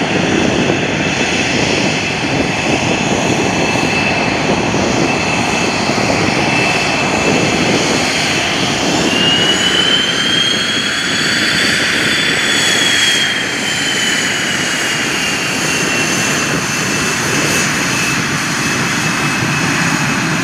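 F/A-18C Hornet jet engines running: a continuous loud jet noise with a high whine that rises and then falls back around the middle.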